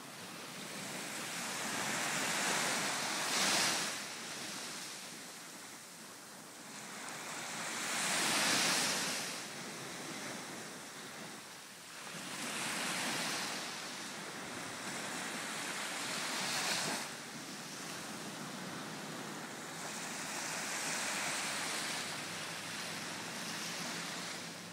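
Small waves breaking and washing up a sandy beach, each swelling and fading in turn, about one every four to five seconds.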